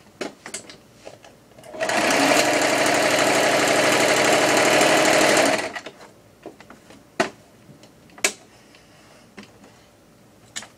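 Singer electric sewing machine running at a steady speed for about four seconds, stitching a seam through fabric, starting about two seconds in and stopping abruptly. A few short clicks and knocks come before and after the run.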